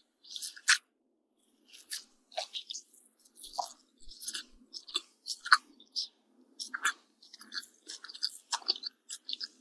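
Close-miked chewing of pancake with honey and bacon: irregular wet clicks and crunches of a mouthful being chewed, with a short pause about a second in.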